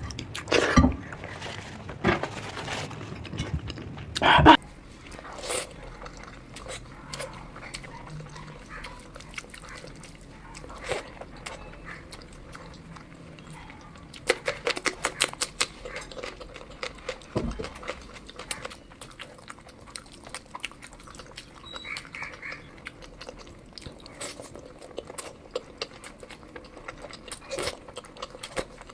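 Close-up eating sounds of a person chewing and smacking their lips over curry and rice: a steady run of short wet clicks and smacks, with a few louder ones in the first few seconds.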